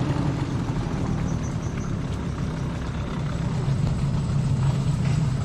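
Small outboard motor on an inflatable dinghy running steadily, a constant low hum.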